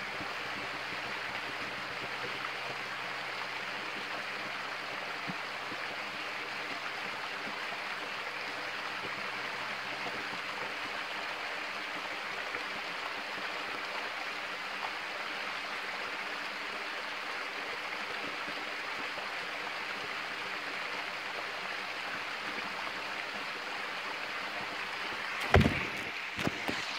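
Steady rush of flowing water from a stream. A few loud knocks and rattles near the end as the phone camera is handled.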